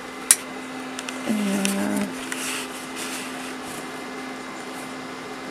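Steady hum and whir of running electronic equipment's cooling fans, with a constant low tone. A sharp click about a third of a second in, from the camera being handled as it comes off its tripod.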